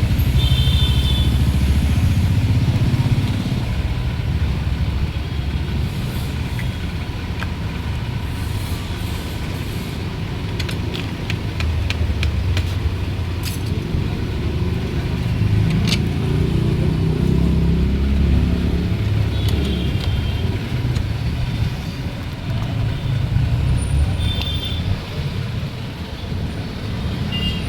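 Vehicle engines and road traffic rumbling, swelling and fading unevenly, with scattered clicks near the middle and a few short high-pitched beeps.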